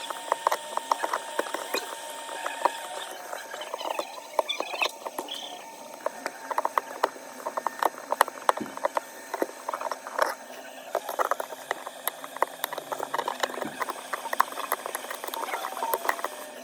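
Many quick small clicks, taps and scratches of hand tools working on an iPhone 13 Pro during a back-glass repair, coming irregularly and close up.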